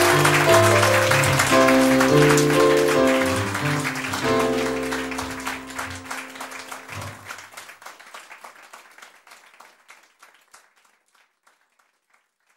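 Closing music over audience applause, the whole fading out: the music ends about seven seconds in and the clapping dies away a few seconds later.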